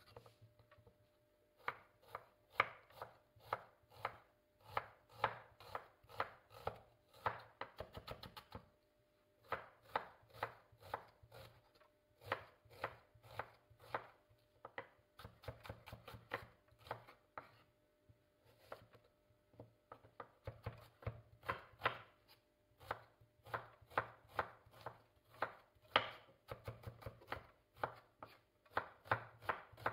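Kitchen knife slicing onion into half rings on a wooden cutting board: a steady run of sharp chopping taps, about two or three a second, with two short pauses.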